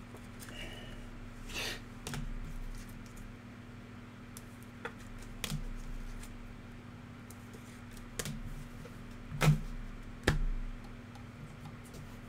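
Trading cards being handled and slid into plastic card sleeves and rigid top loaders: scattered light clicks and taps of plastic and card, with two louder knocks about three-quarters of the way through. A steady low electrical hum runs underneath.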